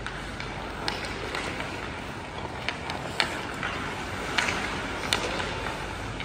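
Ice hockey play: skates scraping the ice and several sharp clacks of sticks on the puck, over a steady background noise of the rink.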